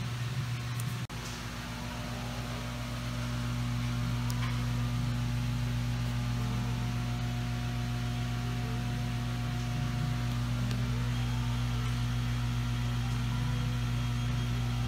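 Steady low machine hum with a higher overtone, briefly dropping out about a second in.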